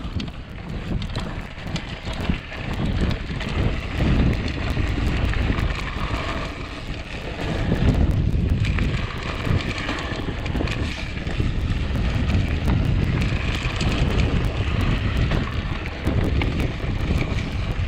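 Mountain bike riding fast along a dirt singletrack: wind buffeting the rider's camera microphone over a steady rumble of knobby tyres on dirt, with many small clicks and rattles from the bike over bumps.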